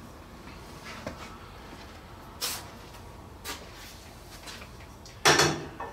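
Scattered light knocks and clicks of metal radio mounting brackets being handled on a workbench, with a louder clatter near the end.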